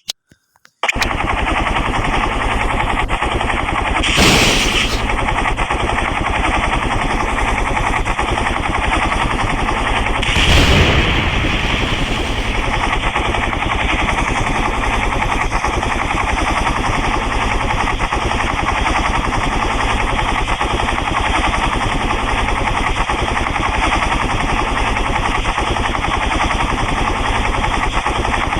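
Helicopter rotor chop: a loud, fast, steady pulsing that starts about a second in after a few clicks. It swells briefly louder twice, around four and ten seconds in.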